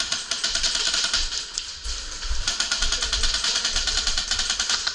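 Airsoft guns firing full-auto: a rapid, even stream of sharp clicks with a short lull about two seconds in before the firing picks up again.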